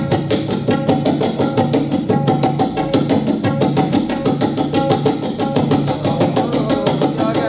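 Tabla played in a fast, even run of strokes that imitates a moving train.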